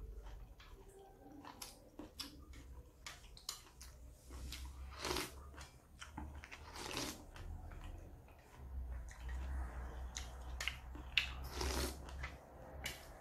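A person eating instant noodles up close: wet chewing and mouth smacks, with several short slurps of noodles in between.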